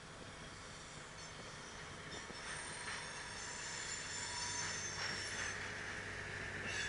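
Kaelble-Gmeinder diesel shunter moving a string of tank wagons and growing louder as it comes closer. Its engine runs low and steady underneath, and high thin wheel squeal from the wagons comes in about a third of the way in.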